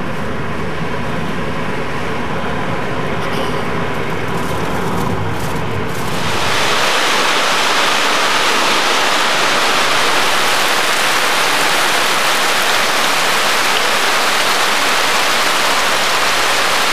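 Road noise inside a moving car, a steady low rumble, cut off about six seconds in by a heavy tropical downpour: a loud, even hiss of rain pouring down and streaming off a corrugated roof edge.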